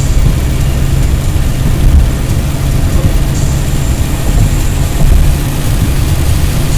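Car driving on a wet road in the rain: a loud, steady, low rumble of engine and tyres that holds level throughout.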